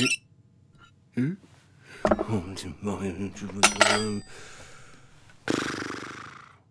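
A cartoon man's wordless voice sounds: a short rising "hm?" about a second in, then grumbling and moaning, with metal cutlery clattering down onto a plate near the middle. A long breathy exhale fades out near the end.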